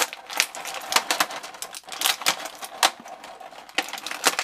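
A thin clear plastic bag crinkling as hands pull it open and rummage in it: a dense, irregular run of sharp crackles and clicks.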